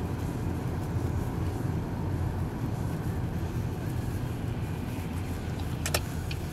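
Steady low rumble of a car's engine and tyres heard inside the cabin while driving slowly. Near the end a click and then regular ticking of the turn-signal indicator begin.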